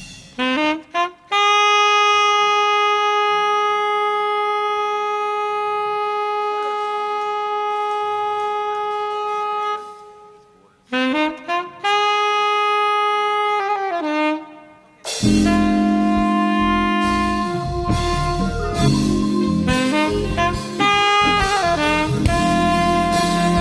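Unaccompanied alto saxophone solo: a quick run, then one long held note of about eight seconds, a short break and more fast runs. About fifteen seconds in, the band comes back in with drums, bass and keyboard under the saxophone.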